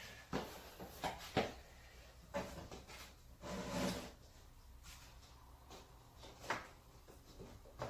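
Hand handling noise from an LED tail light and its wiring pigtail being fitted at a car body: scattered light clicks, knocks and rubbing, with a handful of sharper taps.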